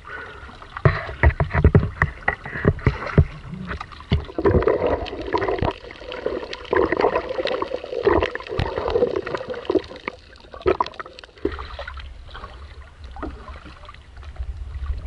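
Water splashing and gurgling around a small wooden outrigger canoe, with many sharp knocks in the first few seconds.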